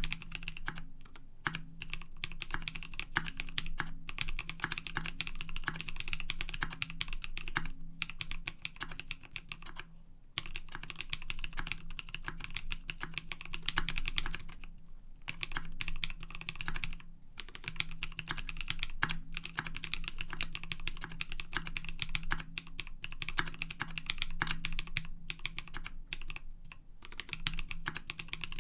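Typing on a KBD D60 mechanical keyboard with lubed NovelKeys Cream linear switches, a polycarbonate plate and PBT keycaps: a fast, continuous run of keystrokes broken by a few brief pauses.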